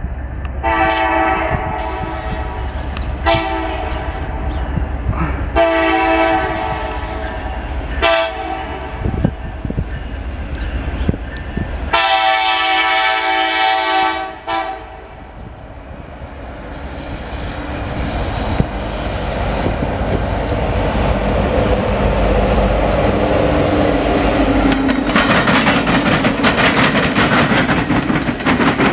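Norfolk Southern freight locomotive's multi-chime air horn sounds four long blasts. After that the rumble of the freight train grows steadily louder, and the wheels clatter over the rails near the end.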